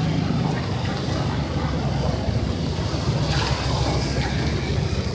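Busy city street ambience: steady traffic noise with a constant low engine hum.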